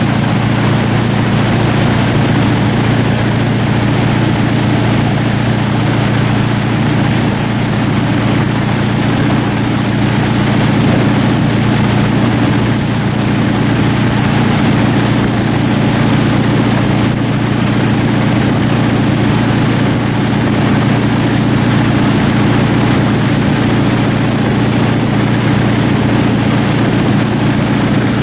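Tow boat's engine running steadily at towing speed, a constant hum, over a hiss of wind and rushing water.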